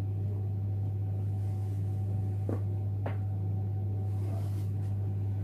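A steady low hum, with two faint clicks about two and a half and three seconds in as the jewellery box is handled.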